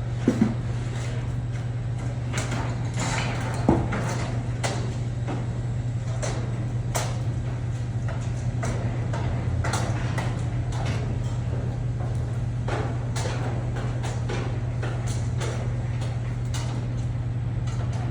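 Steady low machine hum with irregular knocks and clicks on top. Two sharp knocks come just after the start and a louder one about four seconds in.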